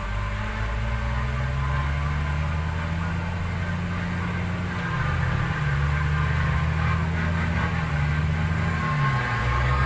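Hino 500 dump truck's diesel engine labouring under load as the laden truck climbs a slippery red-clay dirt road. The engine note holds steady, dipping briefly in pitch a few times.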